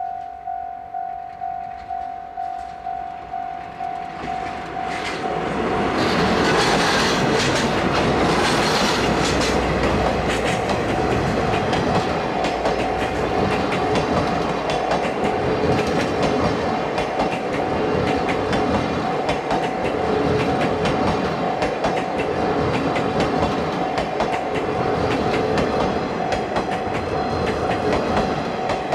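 Japanese level-crossing warning bell ringing about twice a second. About five seconds in, a train reaches the crossing and passes loudly, its wheels clacking over the rail joints while the bell keeps ringing.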